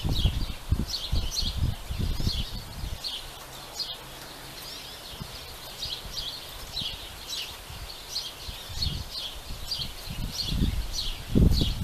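Small birds chirping over and over, with gusts of wind buffeting the microphone. The gusts are strongest in the first few seconds and again near the end.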